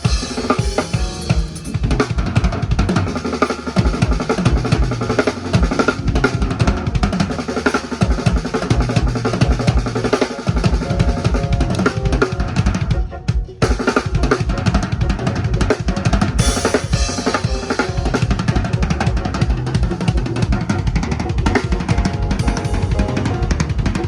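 Loud drum-heavy music with a pounding bass-drum beat and snare, played through a stadium sound system in a sound check. It drops out for a moment about 13 seconds in.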